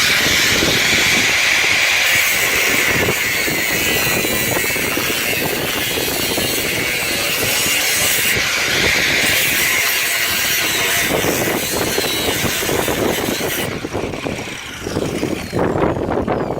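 Handheld power cutting tool running under load as it cuts through the car's sheet-steel floor panel, a steady high-pitched noise. About three-quarters of the way through it breaks into shorter bursts as the cut is finished off.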